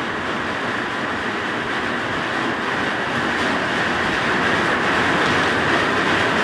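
Heavy rain pouring down, a dense steady hiss that grows slightly louder.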